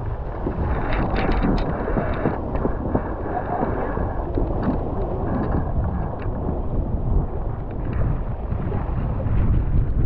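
Wind buffeting the microphone and water rushing along the hulls of a Nacra 15 catamaran sailing at speed, with occasional sharp splashes of spray.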